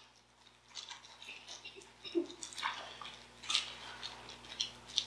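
Faint, irregular rustling and crinkling of thin Bible pages being turned and handled.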